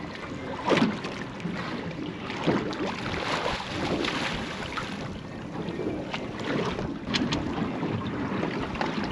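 Small waves slapping and lapping against a small boat's hull, with wind on the microphone. A few sharp knocks come through, the loudest less than a second in and another about seven seconds in.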